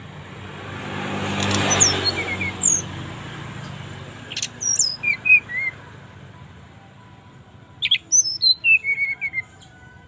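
Caged brown-chested jungle flycatcher (SRDC) singing: short phrases of clear whistled notes that step down in pitch, with two main phrases in the middle and near the end. A swell of background noise rises and fades in the first two seconds.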